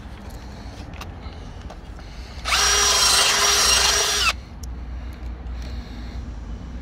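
Cordless drill running at a steady speed for about two seconds as it bores at a slight angle into a timber corner brace, then stopping abruptly. There are small knocks of the wood and drill being handled before and after.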